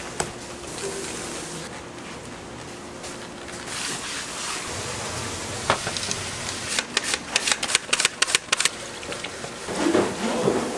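Raw salmon being handled on a steel prep counter, with a quick run of clicks and knocks, then red liquid poured from a container and splashing over salmon fillets in a plastic tub near the end.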